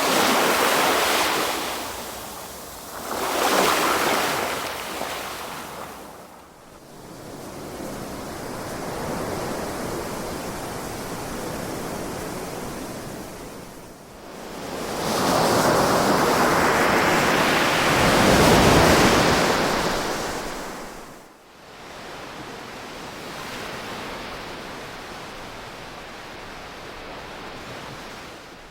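Ocean surf: waves swelling and washing in over a steady hiss of water. There is a surge at the start, another a few seconds later, and a longer, louder one a little past halfway, with quieter stretches of surf between.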